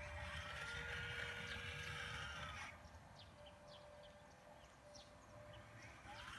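Hydraulic pump and motors of a radio-controlled CAT 336 excavator model whining under load as the boom lifts and the upper body swings, the pitch rising at first and then holding. About two and a half seconds in it drops to a lower steady hum, then whines up again near the end as the next movement starts.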